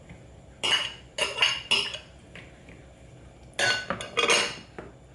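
Spoon and dishes clinking and scraping against a bowl as ingredients are tipped into the mix, in two bursts of several clatters: about a second in and again around four seconds.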